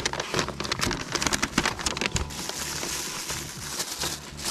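Paper butcher wrap and a plastic bag being unwrapped by hand: dense crinkling and crackling for the first two seconds or so, then a softer rustle of the plastic.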